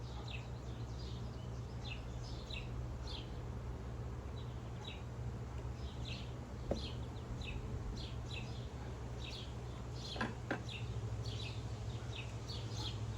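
A small bird chirping over and over, with short high notes that fall in pitch, a few every second, over a steady low hum. There are a couple of light knocks, about seven and ten seconds in.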